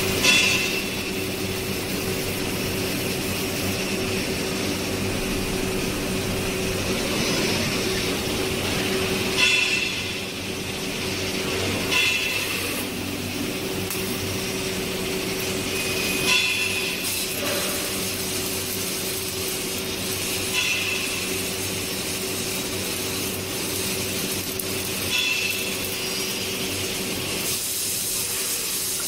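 Laser tube cutting machine running while it cuts a steel pipe, with a steady mechanical hum and a short, louder burst of noise every few seconds, six in all.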